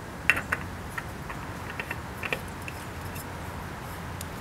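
A scatter of light clicks and taps as a new Kawasaki oil filter is handled and threaded by hand onto the ZX6R engine's filter mount. The sharpest click comes about a third of a second in, and the rest fall over the next few seconds.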